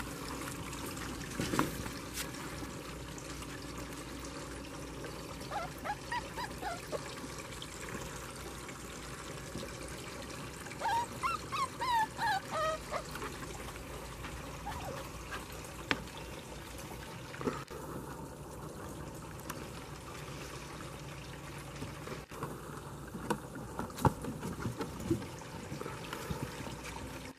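Young puppies whimpering in short, high, rising-and-falling squeaks, a few around six seconds in and a longer run about eleven to thirteen seconds in, over a steady hiss and an occasional click.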